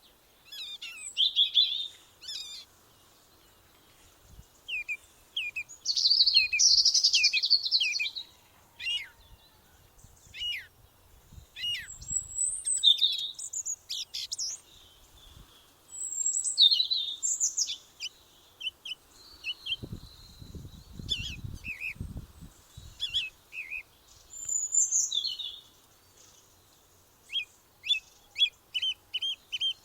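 Small songbirds singing and chirping, with short calls, quick rising and falling notes and trills. A short low rumble about two-thirds of the way through.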